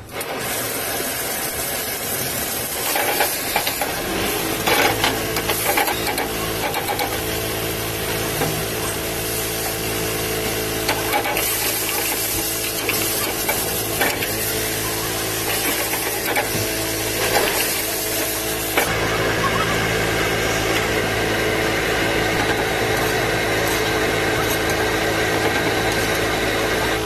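Metal ladle scraping and knocking against an iron wok while food is stir-fried, over a steady machine-like hum. Knocks come in scattered clusters, and the background shifts about 19 seconds in.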